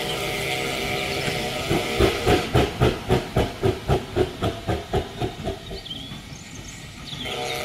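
GWR steam railmotor No. 93 pulling away. Steam hisses steadily at first, then comes a quick beat of exhaust chuffs, about four a second, which fades as the railmotor draws off. The hiss rises again near the end.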